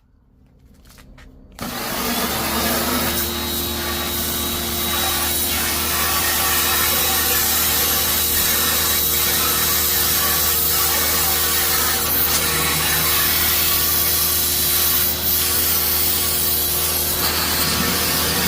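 Pressure washer kicking in about a second and a half in, then running steadily, its motor humming under the hiss of the water jet spraying rusted, painted sheet steel.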